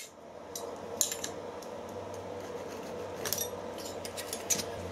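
A few light metallic clinks and taps as steel hand tools are handled and set down against the milling machine's vise and table, over a steady low hum.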